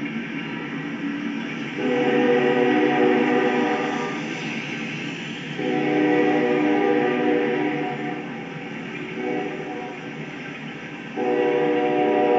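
Freight locomotive air horn sounding at a grade crossing: two long blasts, a shorter, weaker one, then a final long blast starting near the end. The steady rumble of the passing train runs under the horn.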